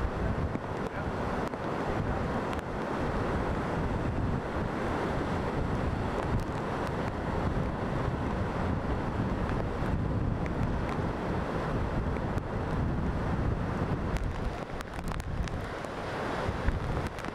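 Heavy hurricane surf breaking and churning around the wooden pilings of a pier, with wind buffeting the microphone, more sharply in the last few seconds.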